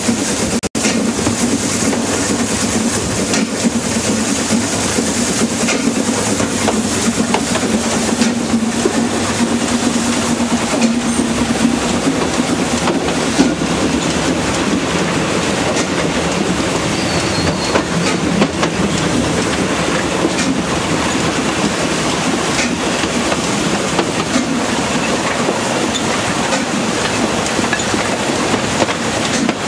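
Narrow-gauge steam locomotive 101 and its train running along the line, wheels clattering over the rail joints. A steady low drone through the first part fades out a little before halfway.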